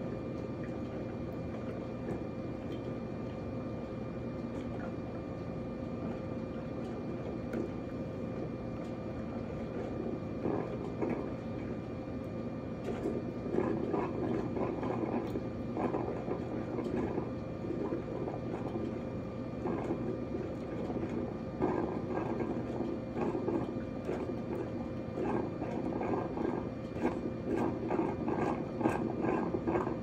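Cuisinart DCC-450BK drip coffee maker brewing: its water heating tube gurgles and spits in irregular bursts, which start about ten seconds in and grow more frequent. Under them runs a steady electrical hum.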